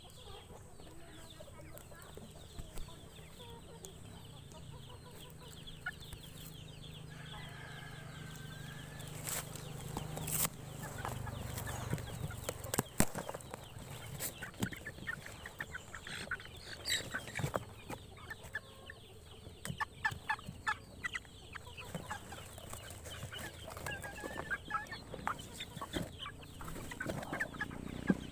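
Young native chickens clucking with the odd short call, amid scattered knocks and scraping from the cardboard box they are being let out of.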